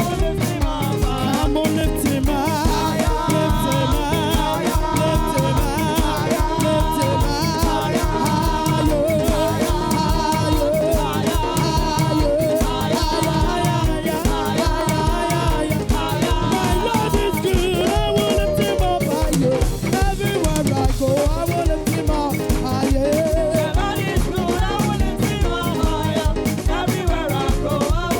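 Upbeat praise music: a drum kit keeping a fast, steady beat under singing and other instruments.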